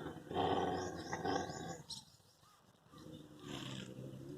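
Dogs growling in a fight: a long rough growl, a short pause, then another growl begins about three seconds in.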